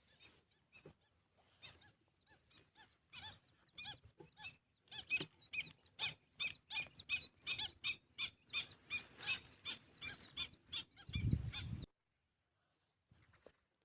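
A bird calling in a long series of short, harsh repeated notes, faint at first, then louder at about three notes a second. A brief low rumble follows near the end, and the sound cuts off abruptly.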